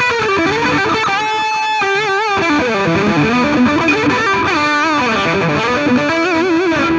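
Electric guitar playing a lead line of sustained notes with wide vibrato and slides, through the Donner Alpha Force pedal's distortion channel (gain at about half) with a little delay added, into a Fender Twin Reverb amp.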